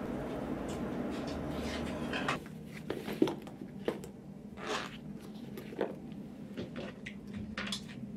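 A steady room hum, then a series of light clicks, taps and rustles as things are put into a tote bag.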